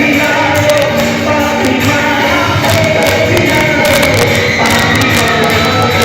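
Live band playing a Nepali song, with a lead singing voice over drums and cymbals, loud and steady.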